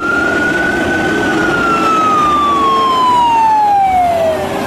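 Fire truck siren wailing: the pitch rises a little, then falls slowly and steadily over about three and a half seconds.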